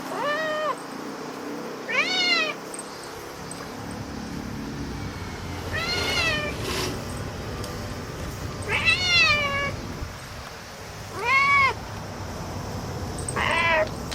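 Domestic cat meowing over and over, about six meows a couple of seconds apart, each rising and then falling in pitch. It is an excited fuss at a cicada it has spotted.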